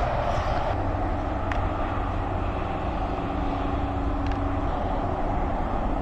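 Steady low rumble of outdoor background noise, with two faint clicks and a faint hum for a second or so past the middle.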